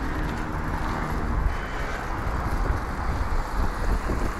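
Steady city road traffic noise heard from a moving bicycle, under a heavy, even low rumble.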